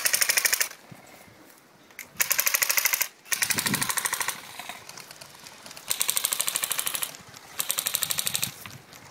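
Airsoft electric rifles (AEGs) firing five full-auto bursts, each a rapid chatter of shots lasting under a second to about a second, with short pauses between.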